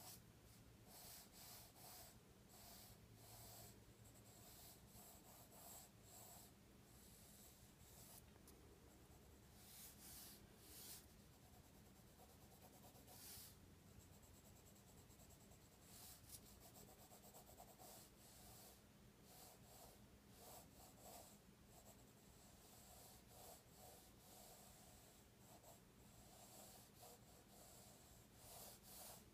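Faint pencil scratching on paper: many short, irregular strokes of a graphite pencil drawing and measuring lines, over a low steady hum.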